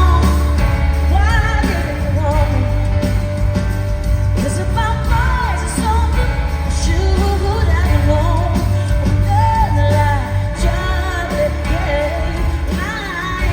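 Live pop band performing with a female lead vocalist singing over a heavy, steady bass line.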